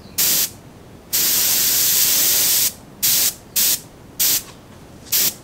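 Paasche hobby airbrush hissing as it sprays Duracoat in six bursts: one long spray of about a second and a half, the others short, quick pulls. The paint cup is running low on Duracoat.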